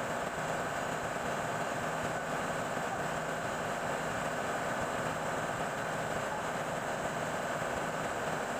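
Steady, unchanging noise of running machinery in a ship's engine room, with no separate knocks or events.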